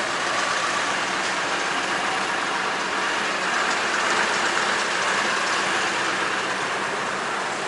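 Machinery running steadily, an even noise with no breaks or changes.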